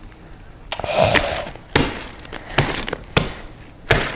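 Sticky pink fluffy slime made of glue, shaving cream and liquid starch, stretched and pressed by hand. There is a squish about a second in, then four sharp pops as the slime pulls apart and sticks. The slime is still sticky because the starch activator has not yet mixed through it.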